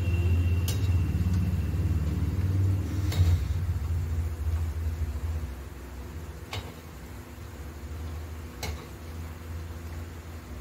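A low rumble that eases about halfway through, with a few sharp clinks of a metal slotted spoon against the kadai as pakoras are turned in the oil.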